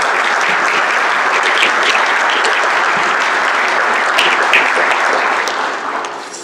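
Audience applauding, a dense patter of many hands clapping that fades away in the last second.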